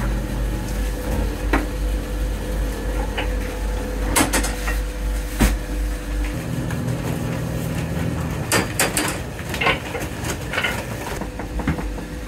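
Knocks, thumps and scrapes of a cook handling soba flour: sacks shifted on a wooden shelf, and a bowl scooping flour from a bin into a wooden tray. Under them runs a steady low machine hum, which changes pitch about six seconds in.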